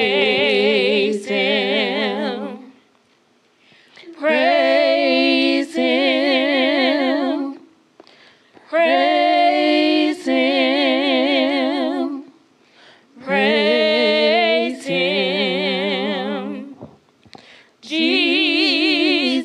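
A gospel singer holding slow, drawn-out notes with heavy vibrato and no accompaniment. The singing comes in five long phrases with short breaths between them.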